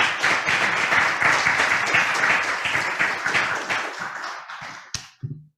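Audience applauding, the clapping tapering off about four seconds in. A single sharp click follows near the end.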